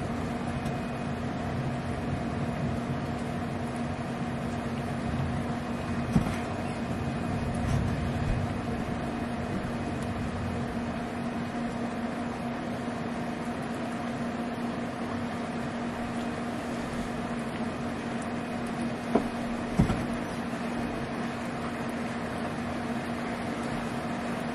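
A steady hum with a constant low tone, with a brief low rumble of distant thunder about eight seconds in and a few sharp clicks around six and twenty seconds.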